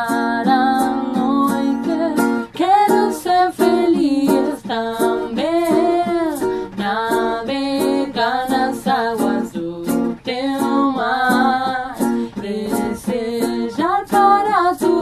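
Background music: a song with a singing voice over plucked strings and a steady light beat.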